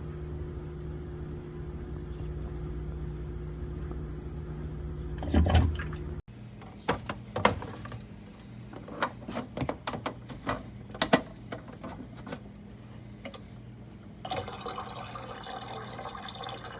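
Water trickling slowly from a plastic drink dispenser's spigot into a cup, a steady thin flow under a low hum. About six seconds in the sound cuts abruptly to a run of scattered clicks and knocks, and near the end a fuller stream of water starts.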